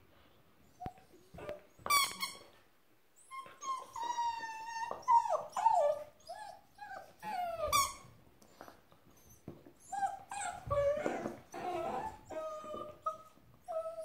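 Eight-week-old German shepherd puppy whining and yelping in short, repeated calls that slide up and down in pitch while it wrestles and chews a toy. The calls begin about a second in and come thickest in the middle.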